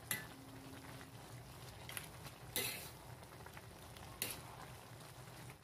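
A spoon stirring a pot of cooked noodles: a few light clicks and one short scrape over a steady low hum.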